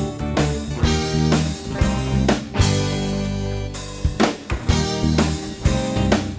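Instrumental background music with guitar and drums.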